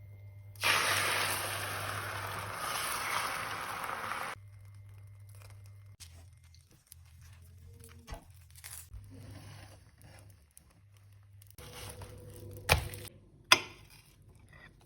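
Egg mixture sizzling in a hot frying pan: a steady hiss that starts suddenly and cuts off after about four seconds. Softer handling sounds follow, with two sharp knocks near the end.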